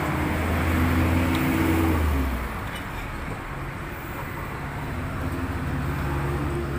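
Road traffic: a motor vehicle's engine hum close by, loudest at first and fading about two seconds in, with another vehicle building up again near the end.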